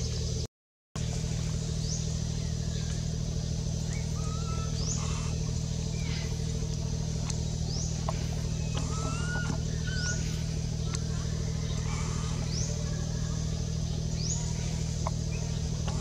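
Steady low engine-like hum, as from a motor vehicle running nearby, with short high rising chirps repeating about every two seconds and a few lower whistled calls over it. The sound cuts out completely for a moment about half a second in.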